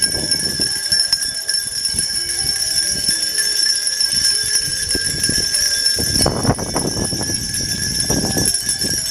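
Many small handbells rung together by a crowd, a dense continuous jingling ringing. Irregular low rumbles and knocks run under it, loudest about six seconds in and again around eight seconds.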